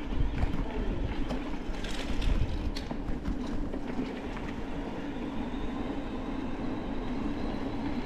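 Electric mountain bike rolling along at speed: a steady rumble of tyres and wind with a constant hum. A few sharp clicks and rattles come around two to three seconds in.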